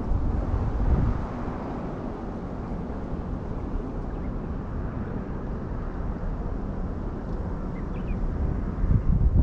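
Strong wind buffeting the microphone as a low, rumbling noise, with louder gusts about a second in and again near the end.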